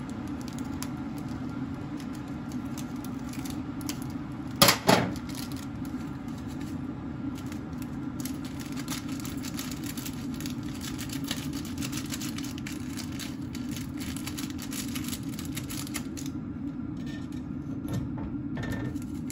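Plastic packet of dried vegetable flakes being handled and torn open: one sharp crackle about five seconds in, then light crinkling and ticking. A steady low hum runs underneath.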